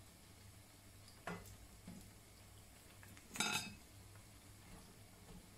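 Metal slotted spoon and fork clinking as fried bhajis are lifted out of a frying pan: a sharp click about a second in, a lighter one soon after, and a louder ringing clatter past the halfway point, over a faint steady hum.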